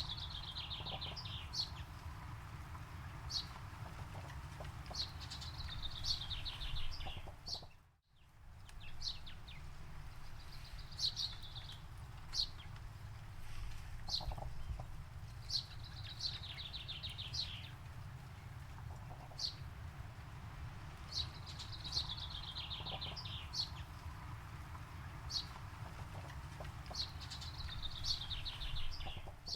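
Forest songbirds singing: a high, descending trilled phrase about two seconds long repeats every five or six seconds, with short single high chirps between, over a steady low rumble. The sound drops out briefly about eight seconds in.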